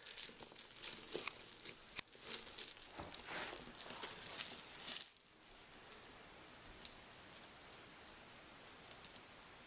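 Glow sticks being bent and cracked, with a faint irregular crackling and rustling of plastic for about five seconds before it goes quiet.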